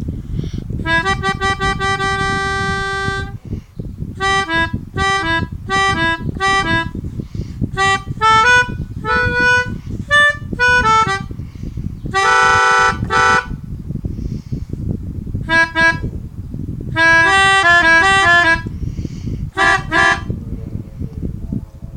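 Melodica (pianika) playing bus 'telolet' horn tunes: clusters of short, quick repeated notes, a long held note about a second in, and a fuller, louder chord around the middle. A steady low background noise runs underneath.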